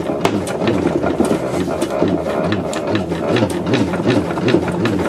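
Hand-cranked demonstration generator turned hard, its mechanism whirring with rapid irregular clicks, while the hairdryer it powers runs on its heat setting. The heating element is a heavy electrical load that makes the handle very hard work to turn.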